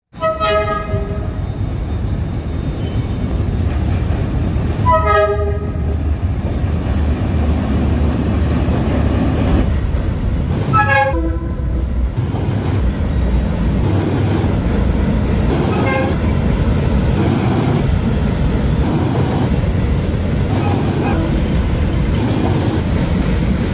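Freight train's diesel locomotive sounding its horn in three loud blasts about five seconds apart, then a few fainter toots. The train's running rumble underlies it throughout.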